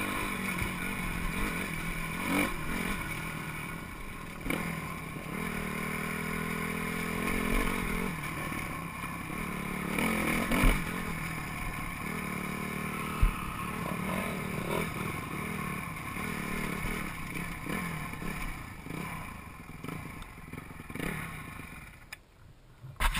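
Dirt bike engine running under varying throttle as it climbs a rough, rocky trail, heard close from the bike itself, with occasional clatter and knocks from the rough ground. The sound drops away sharply just before the end.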